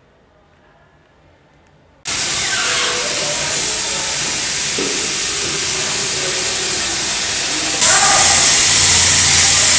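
Tap water running hard into a washroom sink as hands are rinsed under it: a loud, steady rushing hiss that starts suddenly about two seconds in and gets louder about eight seconds in.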